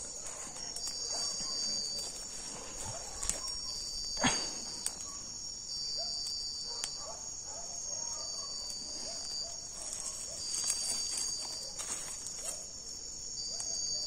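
Night insects, crickets or katydids, keep up a steady high-pitched chorus, with one pulsing trill starting and stopping every second or two. A few sharp clicks and snaps cut through it, the loudest about four seconds in.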